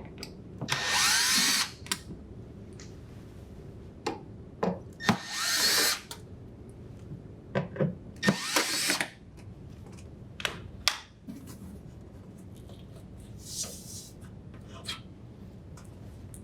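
Cordless drill driver with a Phillips bit backing out the Phillips screws that hold a refrigerator's back panel. It runs in three short bursts of motor whine a few seconds apart, with a fainter fourth near the end. Clicks and knocks of screws and panel handling fall in between.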